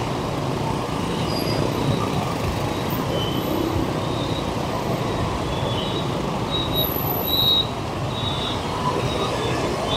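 Congested street traffic, mostly motorbikes: a steady mass of engine and road noise with short high-pitched squeals scattered through it, the clearest one about three-quarters of the way in.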